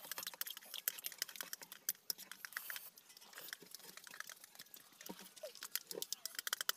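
Close-up eating sounds of spicy instant noodles: quick, wet slurps and chewing smacks mixed with chopsticks clicking against plastic bowls, in a dense run of small clicks.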